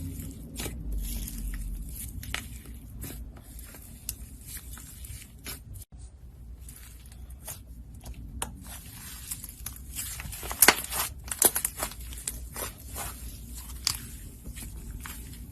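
Slime being squeezed and poked by hand, giving irregular sticky crackles, clicks and small pops, with the loudest cluster of pops about two-thirds of the way through.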